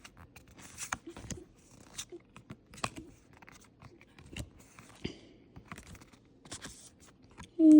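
Pokémon trading cards and a foil booster-pack wrapper being handled: scattered light crinkles, rustles and clicks.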